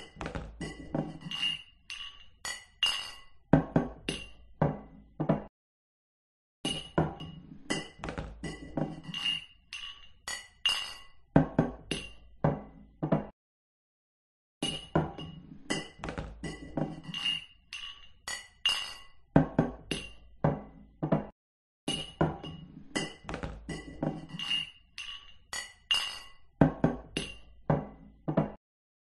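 Glasses clinking together in toasts: quick, bright, ringing taps, several a second. They come in runs of about seven seconds, each cut off by about a second of silence.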